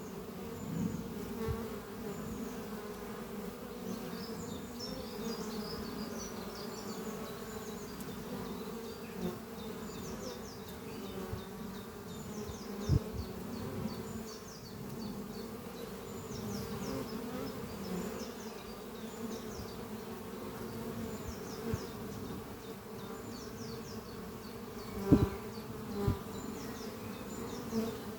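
Honeybees flying at a hive entrance, a steady many-voiced buzzing hum. Single bees pass close by with brief louder buzzes, once near the middle and twice near the end.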